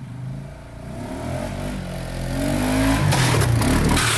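ATV engine revving hard as it accelerates toward the camera, growing louder with its pitch climbing. The sound turns rougher and noisier over the last second or so as the quad rears up.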